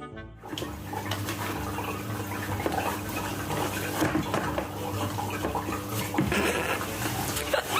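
Dishes and cutlery clinking with water running, over a steady low hum.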